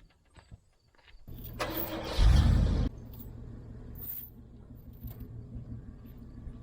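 Pickup truck engine started: a moment of starter cranking, then it catches with a brief loud rev about two seconds in and settles into a steady idle.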